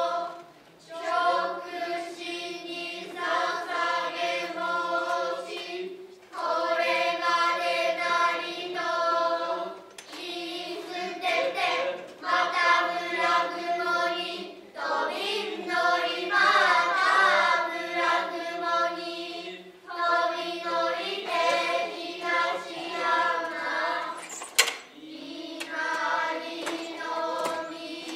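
Group of children chanting noh utai in unison, in long held phrases with short breaks for breath between them. A single sharp click comes near the end.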